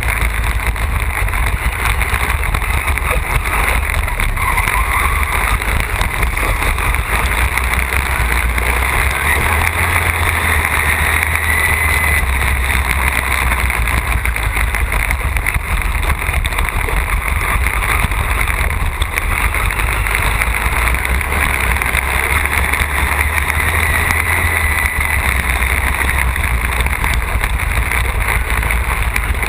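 Racing Allis-Chalmers lawn tractor's engine running hard and steadily at close range, heard from its own hood during a dirt-track race.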